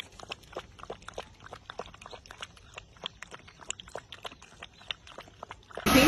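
A puppy lapping water with its tongue: a run of faint, quick wet clicks, several a second. Near the end a loud, steady hair-dryer rush cuts in suddenly.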